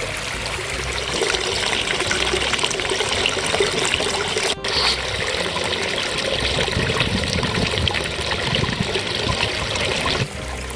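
Water trickling and splashing steadily down a small rock-lined stream into a garden pond. It cuts out for a moment about halfway through and drops in level just before the end.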